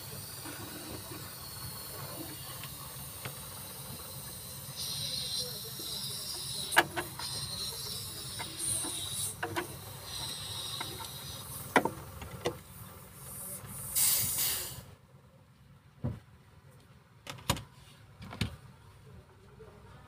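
Refrigerant (freon) gas hissing at the refrigerator compressor's charging tube while the sealed system is charged to find a leak. The hiss swells louder about fourteen seconds in, then cuts off suddenly, followed by a few sharp clicks.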